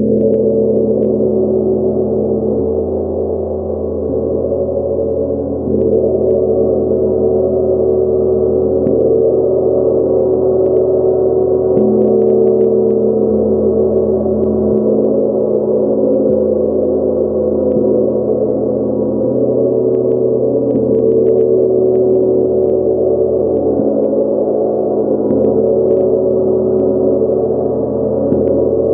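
70 cm Nepalese gong played with a soft red mallet, ringing steadily as a dense wash of many overlapping low and mid tones, growing louder about six seconds in.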